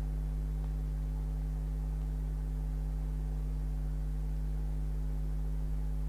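Steady low electrical hum with several overtones, unchanging and without breaks.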